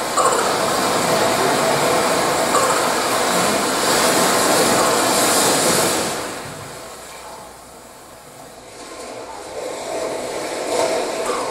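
Stage performance soundtrack of a loud rushing noise, like a train or a blast of air. It fades down about six seconds in and swells back up near the end.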